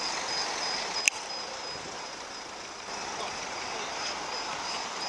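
Bus driving past, a steady haze of engine and road noise with a crowd in the background; a sharp click about a second in.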